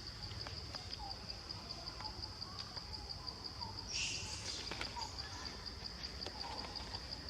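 Insects chirring steadily in a fast, even, high-pitched pulsing trill, with one brief louder rasp about four seconds in.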